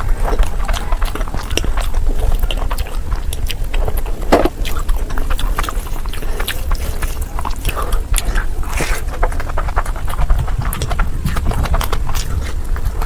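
A person chewing and biting food close to the microphone: wet smacks and crunchy clicks, irregular and continuous, over a steady low hum.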